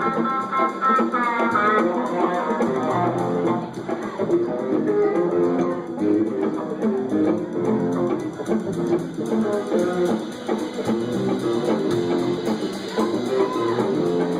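Live band playing an instrumental passage led by guitar over bass, with quick runs of plucked notes and a held, bending note near the start.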